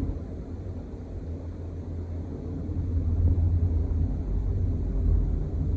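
Low, uneven rumble that swells a little after the first couple of seconds, with no clear source.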